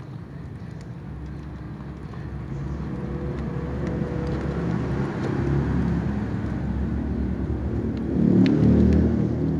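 A motor vehicle's engine running nearby. It grows steadily louder for several seconds, is loudest near the end, then begins to fade, as if it is passing.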